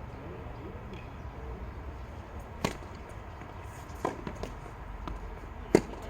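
Tennis ball struck by rackets and bouncing on the court in a rally: a handful of sharp pops about a second or so apart, the loudest near the end.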